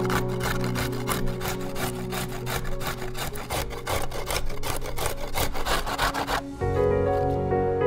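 A raw carrot being grated on a box grater: quick rasping strokes, about four a second, that stop about six and a half seconds in, over soft background music.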